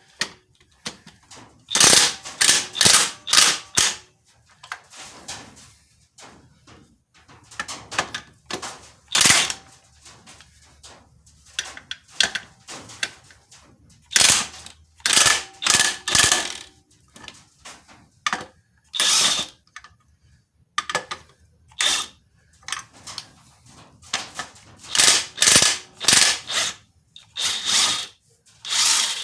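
Hand ratchet wrench clicking in short runs with pauses between, as the 1/2-inch bolts holding the clutch pressure plate to the flywheel are backed off a little at a time.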